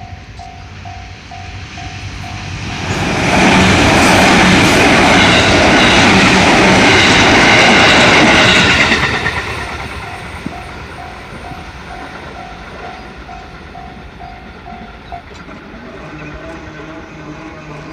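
Japanese railroad crossing bell ringing its 'kan-kan' at about two strikes a second. A JR 221 series electric train then passes loudly over the crossing for about six seconds, its wheels clattering. Afterwards the bell rings on and stops about 15 seconds in as the crossing clears.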